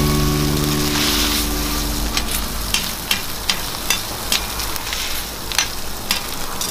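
An egg, cabbage and ham patty sizzling on a flat-top griddle, with a metal spatula scraping and tapping against the steel plate about a dozen times. Steady background-music tones fade out in the first second or two.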